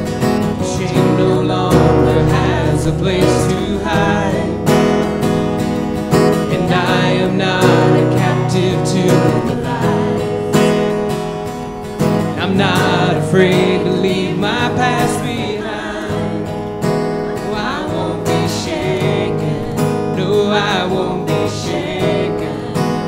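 A worship song: strummed acoustic guitar with voices singing a verse over it, in stretches with short breaks between the lines.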